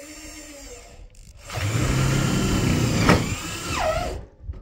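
Cordless drill driving a screw into corrugated metal roofing sheet. A short, quieter spin comes first. About a second and a half in, a louder run of roughly two and a half seconds follows, with a sharp crack partway through, and the motor's pitch falls away as it stops near the end.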